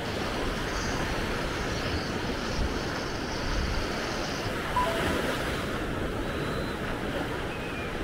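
Caspian Sea surf breaking in small waves and washing up a sandy beach: a steady rush of water.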